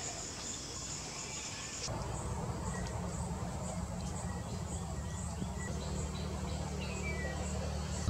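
Outdoor natural ambience: a high insect trill pulsing about three times a second, which stops abruptly about two seconds in. After that comes a different background with a steady low hum and a few faint, short, high bird chirps.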